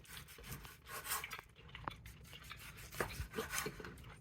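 Knife sawing through a smoked tri-tip in short, faint strokes, with a few light knocks of the blade.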